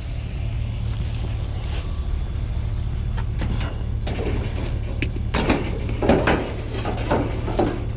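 Rummaging through a dumpster: items rustle, clatter and knock in a run of short noises from about three seconds in, loudest around the middle. Under it runs a steady low engine hum, typical of an idling vehicle.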